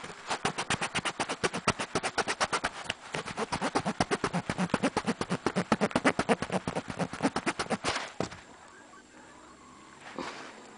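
A fast, even run of sharp clicks, about nine a second, lasting about eight seconds and then stopping.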